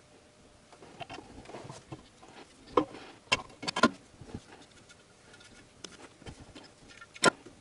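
Scattered light clicks and knocks of a VAZ 8-valve engine's intake manifold being worked by hand down over the cylinder-head studs, with a few sharper knocks near the middle and one near the end.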